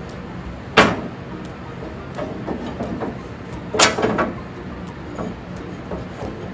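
Metal clanks and knocks from working the mower deck's belt idler pulley and tension lever by hand: two sharp clanks about three seconds apart, with lighter knocks and rattles between them.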